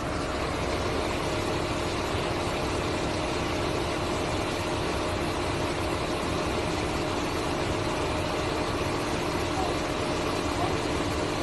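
A car's engine running, a steady hum under an even rush of noise.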